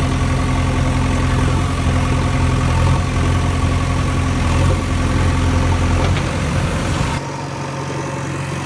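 Diesel engine of a JCB 3DX backhoe loader running steadily at idle. Just after six seconds it turns rougher, and about seven seconds in it drops abruptly to a quieter, thinner sound.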